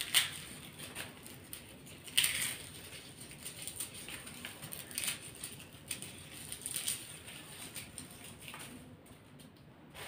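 Garlic bulbs being broken into cloves by hand in a plastic basket: irregular crackling of the papery skins and small clicks of cloves, with two sharper snaps, one right at the start and one about two seconds in.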